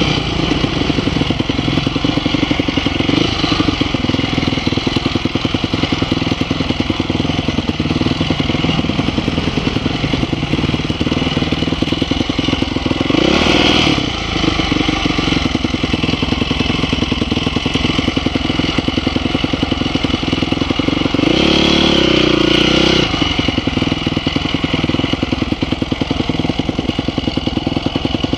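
Off-road dirt bike engines running at low speed. The throttle is opened briefly twice, the revs rising and falling about halfway through and again for a little longer near three-quarters of the way through.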